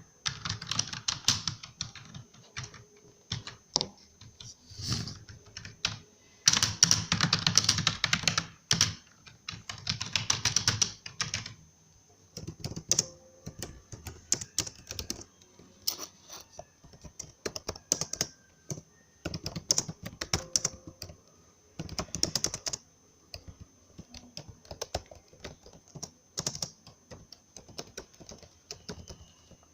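Typing on a computer keyboard: runs of rapid key clicks with short pauses between them, the fastest and loudest runs about a third of the way in.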